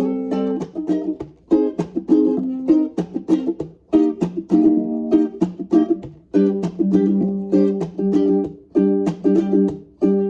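Ukulele strumming chords in a quick rhythmic pattern, with no singing.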